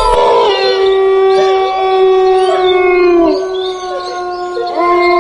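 Several canines howling together in long, overlapping held howls, one sliding down and fading about three seconds in as another rises near the end: an eerie night-howling effect.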